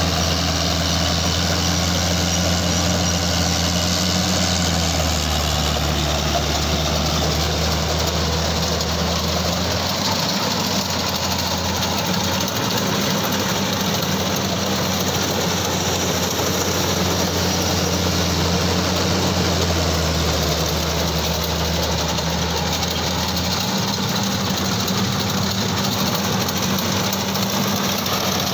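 CLAAS Crop Tiger 30 tracked combine harvester cutting and threshing rice paddy: a steady engine drone under dense mechanical noise from the header and threshing works. Its low note drops and rises again twice.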